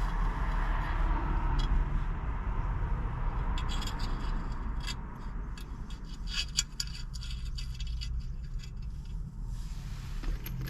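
Metal glass-retaining clips scraping and then clicking repeatedly against the stove's cast-iron door as they are worked into place.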